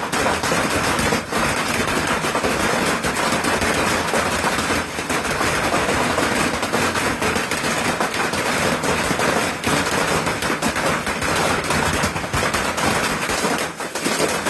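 Heavy hail pelting a hard surface: a dense, unbroken clatter of countless rapid impacts.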